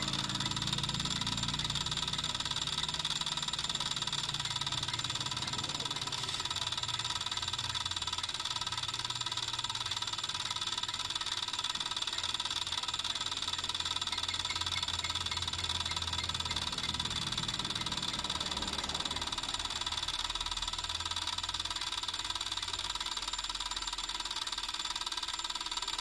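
Domestic water meter with water flowing through it, giving a steady high-pitched whine made of several tones, over a faint low rumble.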